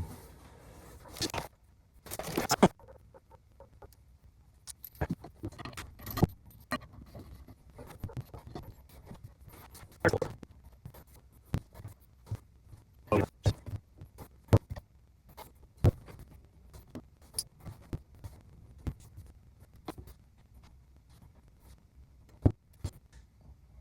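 Irregular small metallic clicks and clinks as a muzzle brake is fitted and tightened onto a rifle barrel, with two sharper knocks, one a few seconds in and one near the end.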